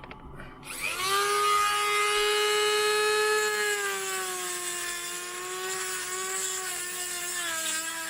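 Dremel rotary tool spinning up about a second in to a high, steady whine, its pitch sagging a little at times as it cuts into a wiper arm cap that has corroded solid onto its spindle.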